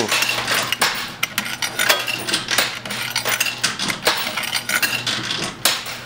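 Quarters clinking and clattering against each other on a coin pusher's shelves, many quick metallic clinks with a steady low hum underneath.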